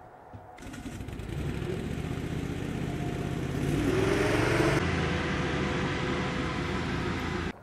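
Light hovercraft's engine and ducted propeller running, growing louder and rising in pitch as it powers up and moves off, then running steadily. The sound cuts off suddenly near the end.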